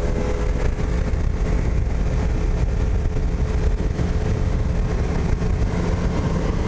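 Bass boat's outboard motor running steadily at speed, under a heavy low rumble of wind on the microphone.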